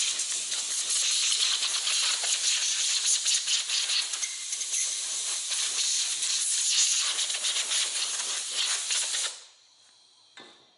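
Compressed-air blow gun blowing off an engine: a loud, steady hiss of air that cuts off a little over nine seconds in.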